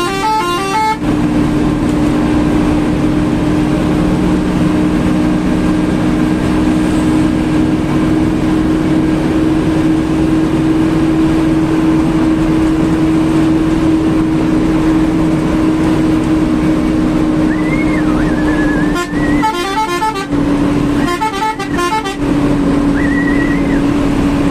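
Intercity bus running fast on the highway, heard from inside the cabin as a steady drone of engine and road noise. Short bursts of a horn rapidly warbling between several notes sound near the start and twice near the end.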